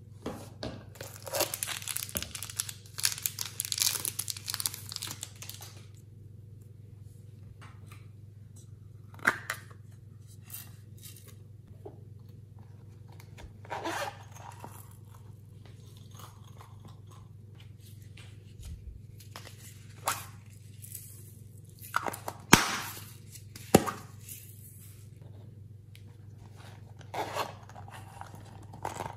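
Hands handling small toy containers and their packaging: a few seconds of dense crinkling and crunching near the start, then scattered clicks, taps and short rasps from plastic and zippered silicone pouches being opened.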